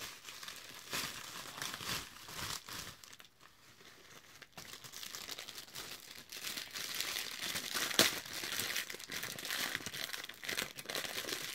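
Plastic packaging crinkling as it is handled: bubble wrap moved aside and clear plastic wrap pulled off a stack of cards. It goes quieter for a couple of seconds near the middle, and there is a single sharp snap about eight seconds in.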